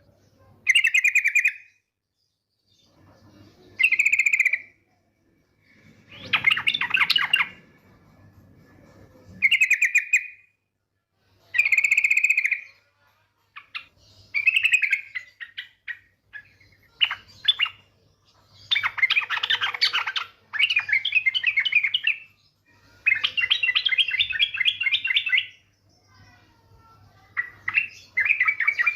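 Female sooty-headed bulbul (trucuk) giving its rapid chattering 'ngetir' call in bursts of a second or two, repeated every few seconds.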